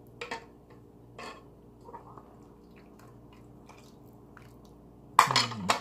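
Broth being ladled from a pot and poured over a whole chicken in a bowl: a few soft splashes and knocks, then a loud, sharp noise lasting about half a second near the end.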